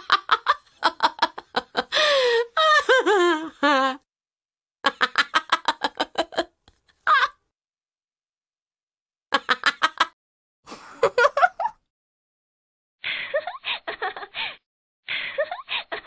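A woman laughing and giggling in a series of separate bursts of quick laugh pulses, with pauses of about a second between the bursts.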